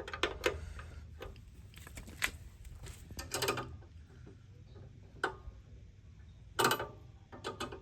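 Metal hand tools clinking and clanking: scattered sharp clicks and knocks, with a louder cluster of clanks near the end.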